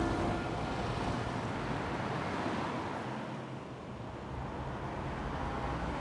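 Steady hum of road traffic, dipping briefly around the middle. A held musical chord fades out at the very start.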